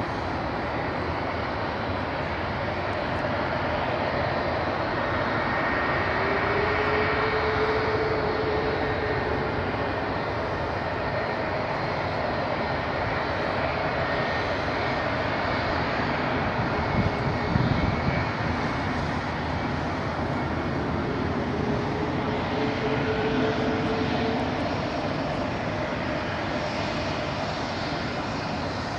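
Airbus A380's four Rolls-Royce Trent 970 turbofan engines running at taxi power: a steady jet roar with a faint whine that comes and goes twice. There is a brief louder low rumble a little past the middle.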